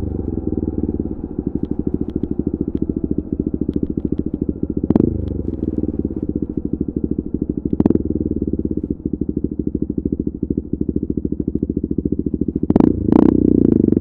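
KTM RC 390's single-cylinder engine through an Akrapovic exhaust while riding, off the throttle with a rapid pulsing exhaust beat. There are short sharp bursts at about five and eight seconds, and near the end two more bursts as it gets louder again back on the throttle.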